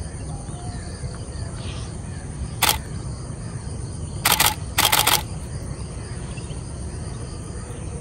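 Canon 5D Mark IV DSLR shutter firing: one brief release about two and a half seconds in, then two short bursts of rapid frames around four and five seconds, over a steady background of insect noise.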